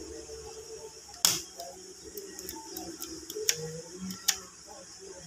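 Piano-key pushbuttons on a Philips L4X-26T portable radio being pressed, giving a string of sharp mechanical clicks. The loudest click comes about a second in, and a quicker run of lighter ones follows over the next few seconds.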